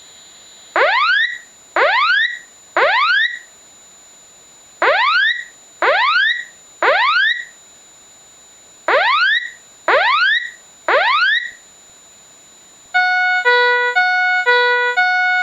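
Japanese fire alarm sounding its warning tone: nine rising electronic sweeps in three groups of three, each sweep rising in pitch over about half a second. About 13 seconds in it switches to an alternating high-low electronic tone, about two notes a second. This is the alarm signalling a detected fire, between its spoken evacuation announcements.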